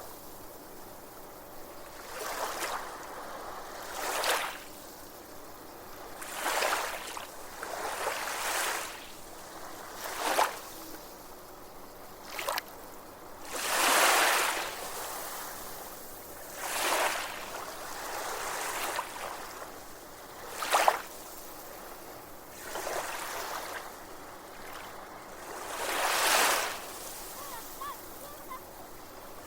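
Small waves breaking and washing ashore: a swell of surf every two seconds or so, at uneven intervals, over a steady hiss.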